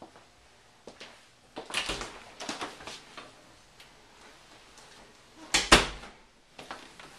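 Panelled closet doors being handled: a stretch of scraping and clattering as they are opened, then two sharp knocks in quick succession past the middle as the pair of doors is pushed shut.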